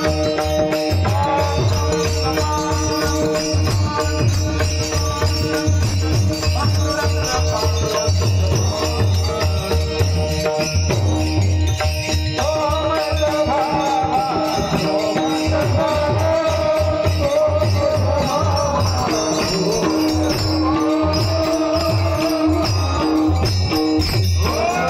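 Devotional bhajan singing: a voice sings a melody over steady held notes from an accompanying instrument, with a regular drum beat and jingling rattle-like percussion throughout.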